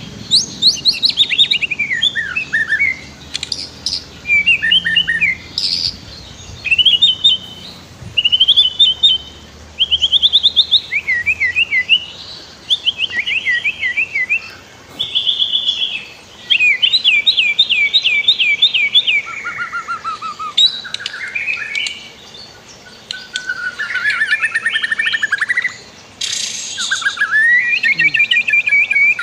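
White-rumped shama singing a long, varied song of clear whistled phrases, fast trills and quickly repeated notes, delivered in bursts with short pauses between them.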